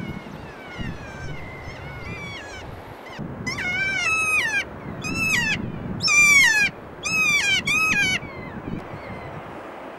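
Kea calling: runs of shrill, downward-sliding screeches, loud and repeated from about three and a half seconds in to about eight seconds, with fainter calls before.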